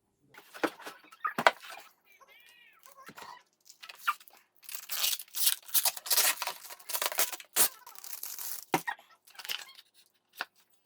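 Packaging or wrapping being torn and crinkled by hand, in irregular bursts of rustling and ripping, with a brief high squeak about two and a half seconds in.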